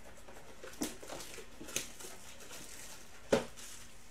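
Cardboard trading-card blaster box being handled and set down on a tabletop: a few light taps, then one sharper knock a little over three seconds in.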